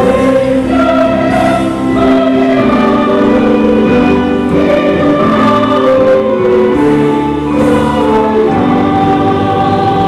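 A choir singing a slow song in long held notes, with musical accompaniment.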